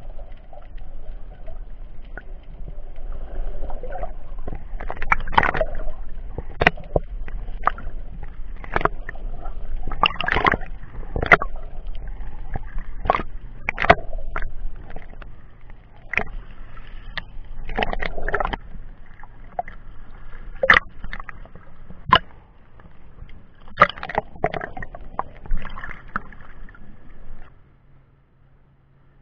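Sea water sloshing and gurgling around an action camera's waterproof case held at the surface, with sharp knocks and splashes about once a second. It cuts off suddenly near the end.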